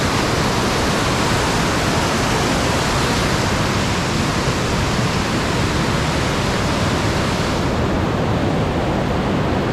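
Loud, steady rush of fast-flowing river water, with the highest hiss falling away about eight seconds in.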